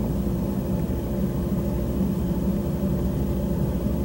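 A police helicopter's steady engine and rotor drone from its onboard recording, with a constant hum-like tone, played back over a room's speakers.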